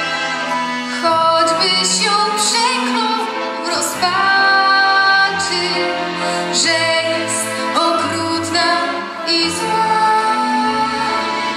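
A teenage girl singing a slow song solo into a microphone, over instrumental accompaniment, her held notes wavering with vibrato.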